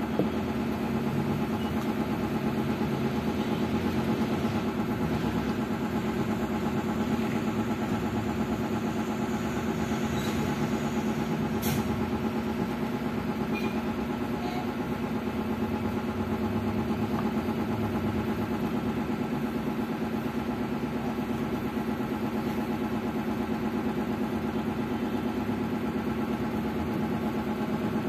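Steady motor hum with a constant low drone that does not change, as from a running machine; a spoon clicks faintly against the dish now and then, most sharply about twelve seconds in.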